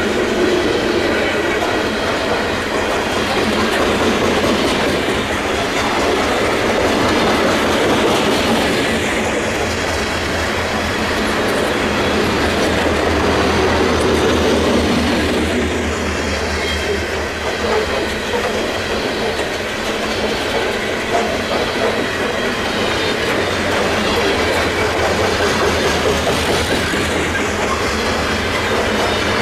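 Freight train of covered grain hopper cars rolling past at speed: a steady rumble and rhythmic clatter of steel wheels over the rail joints.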